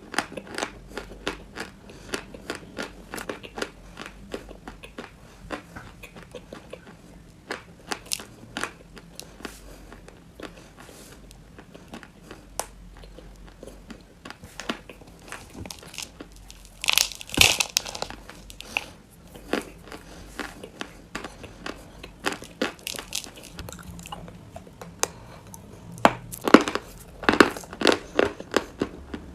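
A pressed chalk 'cookie' being bitten and chewed close to the microphone: a steady run of small crunching clicks, with one louder bite about seventeen seconds in and faster, louder crunching near the end.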